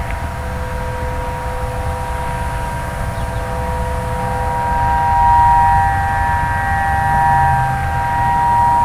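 Several outdoor tornado warning sirens sounding together at a distance, each holding a steady tone, the sound swelling and fading in waves over a low background rumble.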